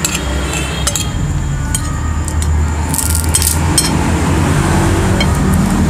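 Spoons clinking and scraping against plates while eating, as short scattered clicks with a cluster about three seconds in, over a steady low rumble that slowly grows louder.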